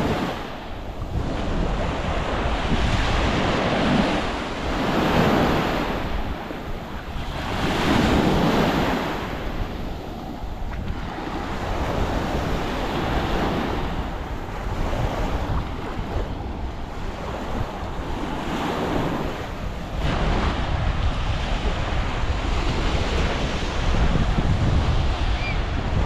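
Sea waves breaking and washing up a sandy shore, swelling and ebbing every few seconds, with wind rumbling on the microphone that grows stronger about three-quarters of the way through.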